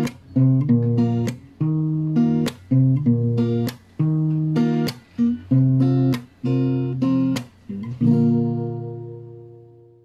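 Intro jingle on acoustic guitar: chords strummed in a steady rhythm, ending on one chord left to ring and fade away near the end.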